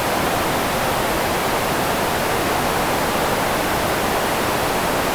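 Steady EQ-filtered white noise: an even, unbroken hiss spread across the whole range, fullest in the middle.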